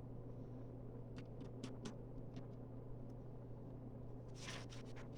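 Faint clicks of small plastic Lego pieces being handled and pressed together over a steady low hum, with a brief rustle about four and a half seconds in.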